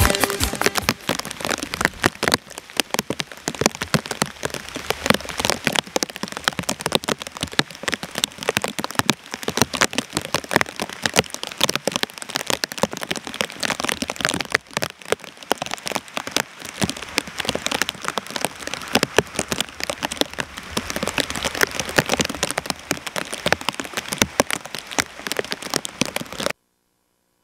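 Rain pattering: a steady, dense stream of small irregular ticks and crackles, cut off suddenly near the end.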